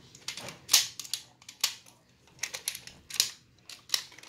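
A toy foam-disc launcher being handled and loaded: a string of sharp plastic clicks and clacks, about eight to ten of them, coming at uneven intervals.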